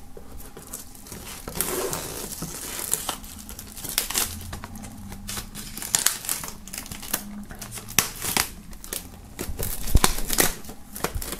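Clear plastic shrink-wrap film crinkling and tearing as it is peeled off a cardboard box by hand, in irregular crackles, with one sharp snap about ten seconds in.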